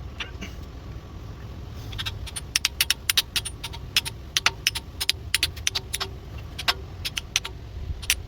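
Sharp metallic clicks and clinks of hand tools or small engine parts being handled. They come irregularly, several a second, starting about two seconds in, over a low steady hum.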